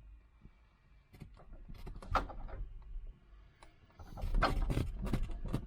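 Continental O-200 four-cylinder engine of a 1962 Cessna 150 being turned over by hand at the propeller with the magnetos off, to draw it through before a hand start: scattered clicks and knocks with low thumps, busier and louder from about four seconds in.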